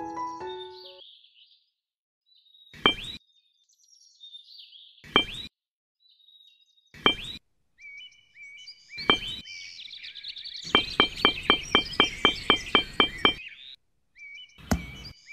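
Sharp knocks of small-scale woodworking, likely a hammer tapping small nails: single knocks about two seconds apart, then a quick run of about a dozen taps near the end. Birds chirp faintly between the knocks.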